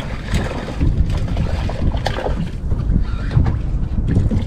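Wind buffeting the microphone in a steady low rumble, over water washing around a boat, with a few brief clicks.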